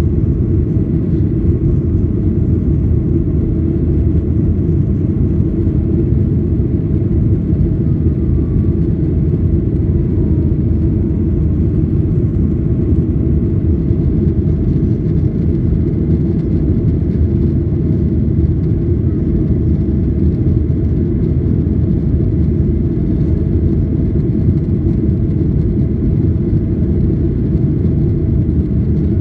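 Boeing 737-800's CFM56-7B turbofan engines and the rushing airflow, heard inside the cabin during the climb after takeoff: a steady, low, even rush of noise with no change.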